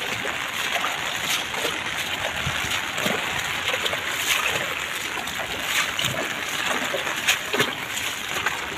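Floodwater running and splashing along a concrete wall: a steady rush of water with irregular small splashes.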